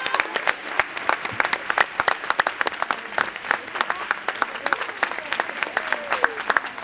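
Audience applauding: dense, irregular hand-clapping, with a few voices calling out faintly among the claps.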